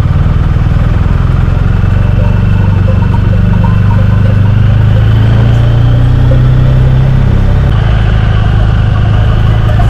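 BMW R1250GS boxer-twin engine running steadily as the motorcycle rides slowly, its deep note shifting slightly a little under two seconds before the end.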